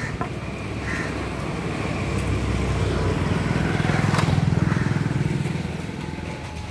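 A motor vehicle passing along the road: its engine grows louder, is loudest about four seconds in, then fades away.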